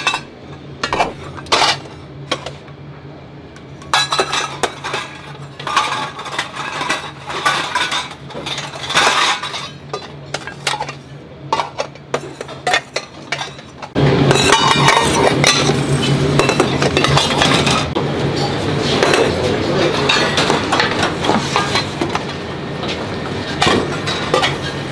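Stainless steel rice bowls clinking and clattering as rice is scooped into them from a large pot with plastic rice paddles. About halfway through, the sound turns suddenly louder and continuous: a steady busy-kitchen clatter of dishes.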